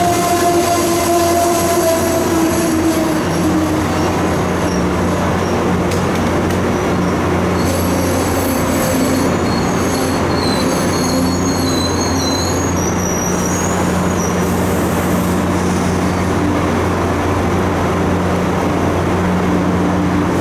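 Amtrak Amfleet passenger cars rolling past along the platform with a steady low hum. Thin, high-pitched wheel squeal comes in about eight seconds in and fades after several seconds.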